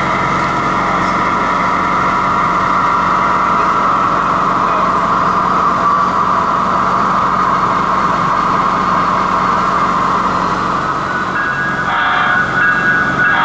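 HO scale SD70M-2 model locomotive's onboard sound system playing a diesel engine running steadily. About twelve seconds in comes a short multi-tone horn blast, and another begins right at the end: the short horn signals given before the locomotive shoves back.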